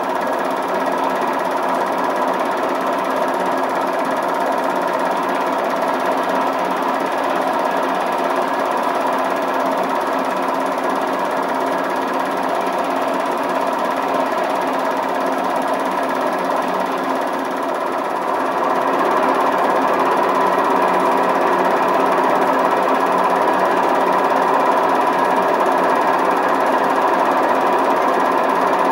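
A machine running steadily with an even, fast mechanical clatter and hum. It does not change in speed and gets a little louder about two-thirds of the way through.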